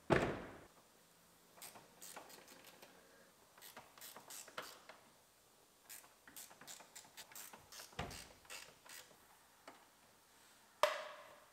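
Tools and metal parts at a pickup truck's rear door hinges as the door is unbolted and lifted off: a short loud burst at the start, then scattered light clicks and taps, and a sharp metal clunk with a brief ring near the end.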